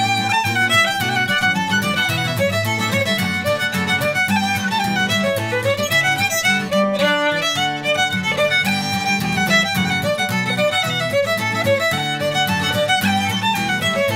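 Fiddle playing a fast dance tune, with acoustic guitar strumming chords underneath.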